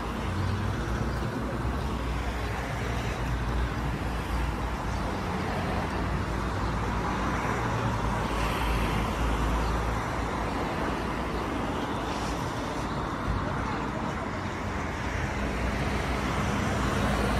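City road traffic: a steady hum of cars driving past on a multi-lane street, with engine rumble and tyre noise.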